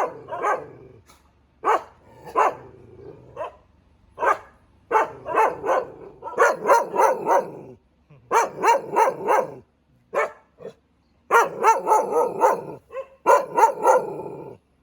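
Thai Ridgeback dog barking over and over, in quick runs of several barks separated by short pauses.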